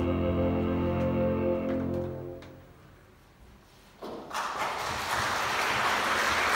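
Opera orchestra holding a low final chord that fades away about two and a half seconds in; after a short hush, audience applause breaks out about four seconds in and carries on steadily.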